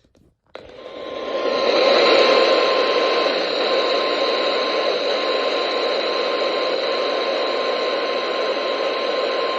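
Radio static: a steady hiss from a receiver with no programme on the channel, cutting in about half a second in and swelling over the next second, with a faint steady tone running through it.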